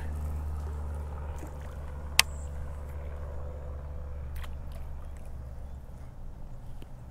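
A steady low hum, with a baitcasting reel being cranked over it and one sharp click about two seconds in.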